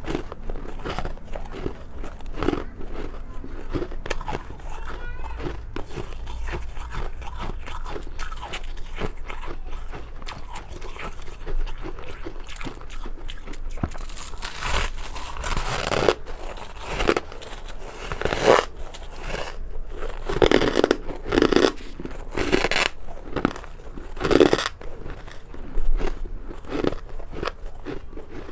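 A person biting and chewing freezer frost: a steady run of close, crisp crunches that get louder and sharper about halfway through.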